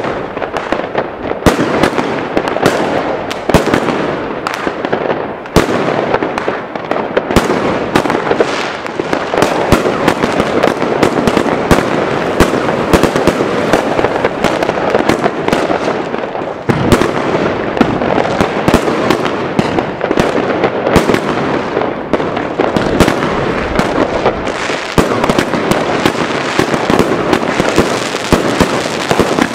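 Multi-shot fireworks box cake firing a rapid, continuous barrage: many sharp launch thumps and bursts packed close together over a steady crackle, with only brief lulls.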